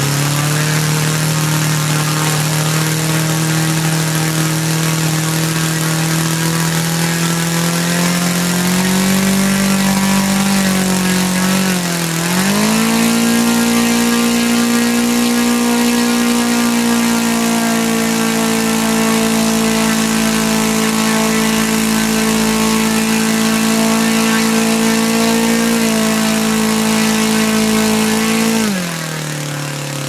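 Laser four-stroke model aircraft engine running on a test stand after its seized carburettor was freed and reset, with the needle not yet leaned out. It runs at a steady low speed, is opened up about ten seconds in, dips briefly, holds a higher steady speed, then is throttled back near the end.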